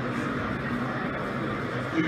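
Steady background hubbub of a busy exhibition hall, with faint distant voices blended into a continuous murmur.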